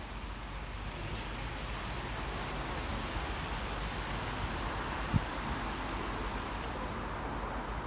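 Steady hiss of rain on a wet city street, with traffic noise under it and a single short thump about five seconds in.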